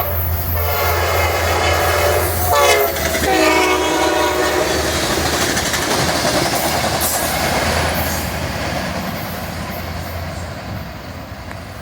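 Train horn sounding as a train passes, its pitch dropping about three seconds in, then the train rolling past, fading near the end.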